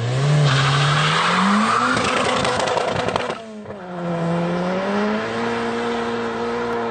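Turbocharged 1200 cc engine of a Fiat 600 race car accelerating hard, its note rising, then a gear change about three seconds in before it pulls again and holds a steady high pitch.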